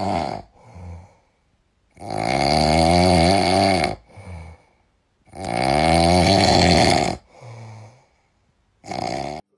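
Small dog snoring loudly while asleep on its back: two long snores of about two seconds each, each followed by a short softer breath out, and another snore near the end.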